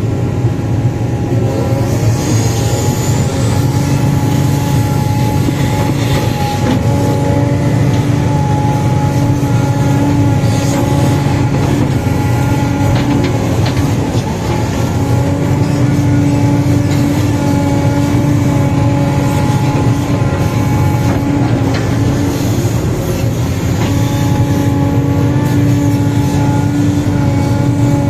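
Sumitomo 490 excavator's diesel engine and hydraulics running steadily under load while digging, heard from inside the cab: a constant drone with a steady whine over it.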